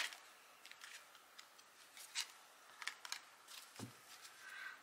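Tarot cards being handled and dealt: a few faint, scattered clicks and flicks of card stock. Near the end comes a soft low thud as the deck is set down on the cloth-covered table.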